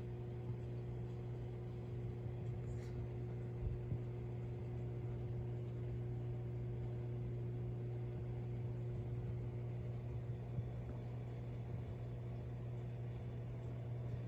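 Steady low electrical hum with a faint hiss from the aquarium's running water pump, unchanging throughout.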